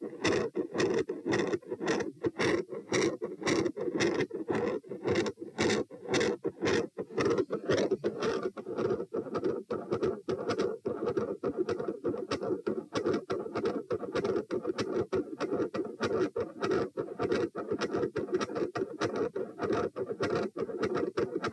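Heart sounds through a stethoscope with a continuous machinery murmur: a steady rumbling hum that runs without a break under regular sharp beats, the murmur that comes on when the subject stands up.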